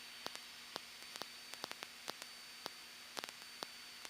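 Faint steady static hiss from an aircraft intercom/radio audio feed, with a faint steady whine and scattered sharp clicks at irregular intervals; the engine itself is not heard.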